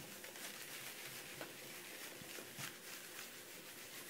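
A baren rubbed in small circles over parchment and paper laid on an inked woodblock, pressing the paper down to take the print: a faint, even rubbing hiss.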